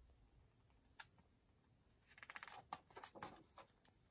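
Page of a hardback picture book being turned: a faint tap about a second in, then soft paper rustling with a few light ticks around the middle.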